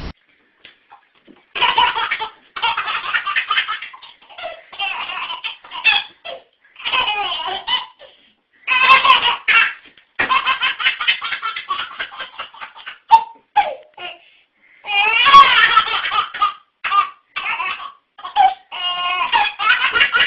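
A baby belly-laughing in repeated bouts, with short pauses between them.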